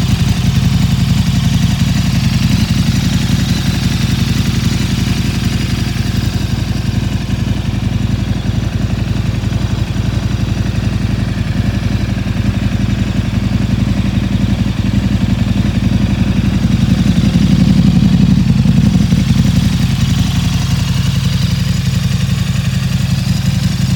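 KTM 1290 Super Duke R's 1301 cc V-twin idling steadily in neutral.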